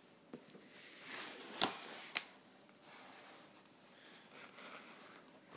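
Cardboard packaging being handled and opened: a soft rustle, then two sharp clicks about half a second apart.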